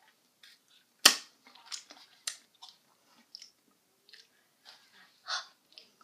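Close-up chewing and biting of frozen fudgesicles: irregular short sharp bites and wet mouth noises, the loudest bite about a second in.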